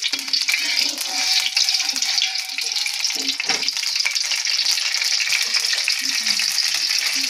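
Cooking oil heating in a wok, sizzling and crackling steadily, with a slotted metal spatula moved through it.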